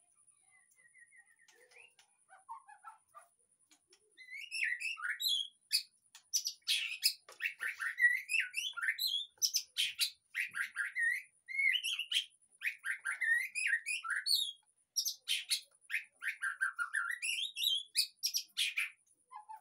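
White-rumped shama (murai batu) singing. A few soft, sparse notes come first, then about four seconds in a loud, varied song starts: rapid whistled phrases that swoop up and down, mixed with sharp clicking chatter, in an almost unbroken run.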